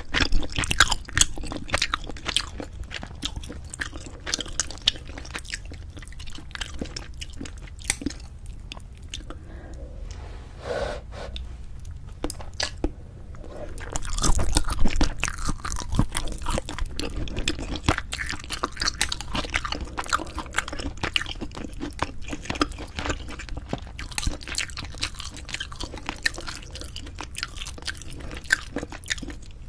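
Close-miked eating sounds of cheese-topped braised spicy chicken (cheese jjimdak): chewing with many small wet mouth clicks and crackles, with a louder stretch of chewing about fourteen seconds in.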